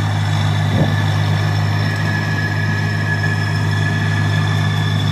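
Kubota D1105 three-cylinder diesel engine of a compact tracked skid steer loader running steadily under throttle, with a steady high-pitched whine over the engine note as the machine is driven forward and back.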